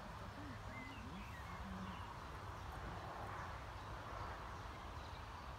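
Steady outdoor background noise with a low rumble, and a few faint bird chirps between one and two seconds in.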